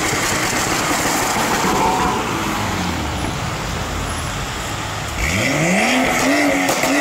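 Cars pulling away on a wet road, engines and tyre hiss on wet tarmac; about five seconds in, a car engine revs up sharply and keeps revving in short pulls.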